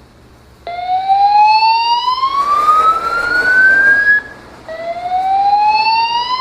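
Building fire alarm sounding its evacuation signal: a loud rising whoop that climbs steadily in pitch for about three and a half seconds, then after a short gap a second whoop begins. It is the slow-whoop tone that alternates with the recorded announcement telling occupants to leave by the stairs.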